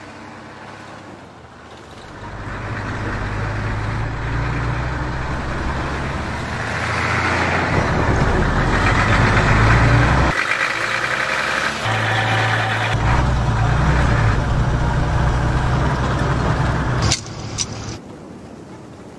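A motor vehicle's engine running, growing louder for several seconds with a short break midway, then stopping with a sharp click near the end.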